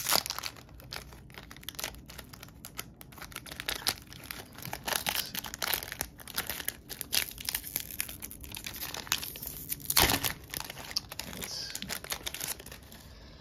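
Foil wrapper of a Pokémon card booster pack crinkling and tearing as it is opened and handled, a dense run of crackles with one sharp, loud crackle about ten seconds in.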